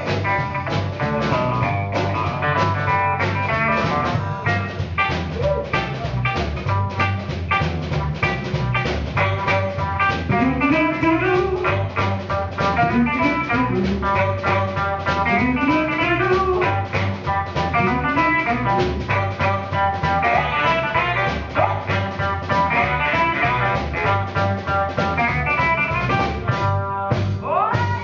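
Live soul-funk band playing an instrumental passage: electric guitar over a steady drum-kit beat, with sliding notes in the middle stretch.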